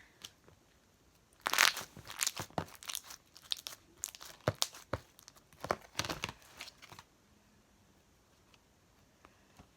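Plastic crinkling and crackling from handling a slime container, in a quick string of sharp bursts lasting about five seconds, stopping about seven seconds in.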